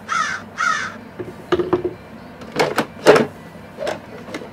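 Two harsh crow caws in the first second, in quick succession, matching the comic caw effect used after a letdown. Then short knocks and rattles as a blender is handled in its box, the loudest about three seconds in.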